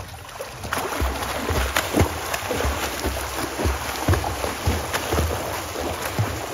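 Swimming-pool water splashing irregularly as people swim, starting about a second in.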